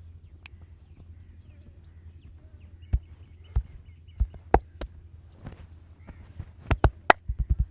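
Sharp percussive strikes of a hand massage on the body. A few single hits come about half a second to a second apart, then a quick run of strikes near the end.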